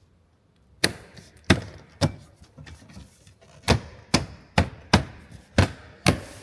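Plastic interior trim being knocked into place by hand: about nine sharp knocks at uneven intervals, starting about a second in, some in quick pairs, as the panel's clips are seated.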